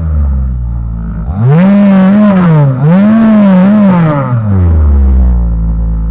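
Lynus MLY-55 two-stroke chainsaw idling, then throttled up about a second in and revving high for about three seconds, dipping twice, before dropping back to idle.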